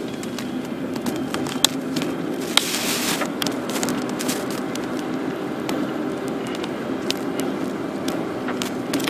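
Car engine and road noise heard from inside the moving car, a steady low hum with frequent small clicks and rattles, and a short rush of noise about three seconds in.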